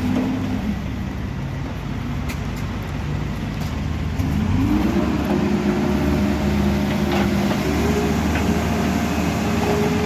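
Cat backhoe loader's diesel engine running, revving up about four seconds in and holding at the higher speed while it works.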